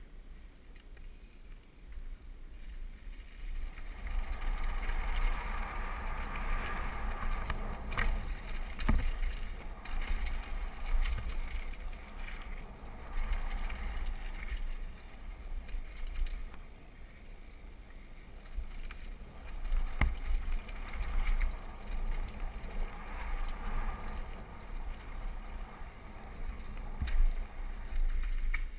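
Mountain bike descending a dirt downhill trail: tyres rolling over packed dirt and loose stones, with wind buffeting the microphone and a few sharp knocks from bumps. Quieter for the first few seconds, then louder and rougher as speed builds from about four seconds in.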